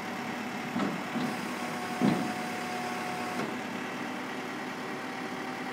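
Flatbed recovery truck's engine idling steadily with a held hum, while the hydraulic tilt bed carrying a 4x4 is brought level. A few metallic clunks come from the bed about a second in and again about two seconds in, the second the loudest.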